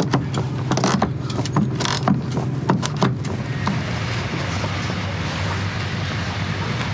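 Sailboat deck winch ratcheting in quick, uneven clicks as the main halyard is cranked tight to re-tension the rig. The clicks stop about three seconds in, leaving a steady rush of wind noise over a low hum.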